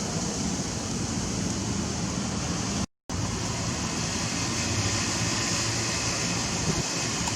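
Steady outdoor background noise, a low hum under a broad hiss, with a brief silent dropout about three seconds in.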